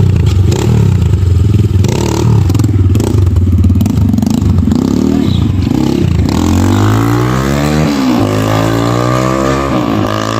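Kayo T2 dirt bike's engine, loud, being ridden under throttle: a rough, uneven note for the first few seconds, then the pitch climbs steadily, drops about eight seconds in as a gear is changed, and climbs again.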